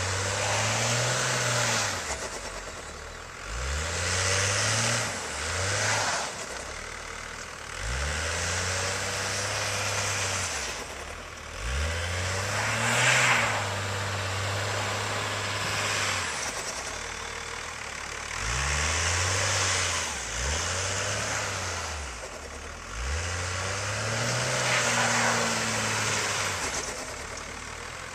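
Car engine revved again and again, about eight times, each rev climbing and falling back over one to four seconds, with a loud hiss at each rev. The scene is a snowstorm, and wheels spinning on snow would fit that hiss.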